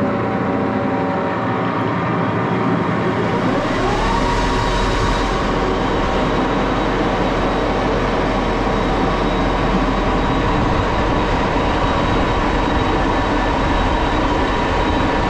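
Axelson lathe running. About three seconds in, the spindle starts and spins up with a rising whine, then runs steadily at about 850 RPM with a steady whine and hum.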